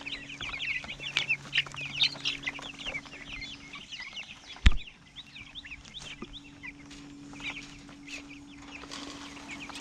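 A flock of baby turkey poults peeping in quick, high chirps while feeding, thick for the first few seconds and then thinning out. A single sharp knock about halfway through.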